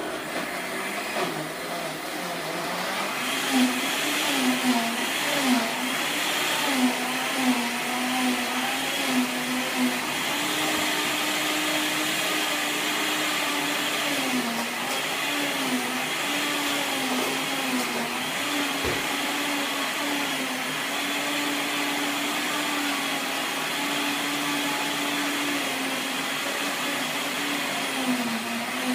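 Countertop blender running continuously, mixing chocolate cake batter; the motor's pitch wavers up and down as the batter churns.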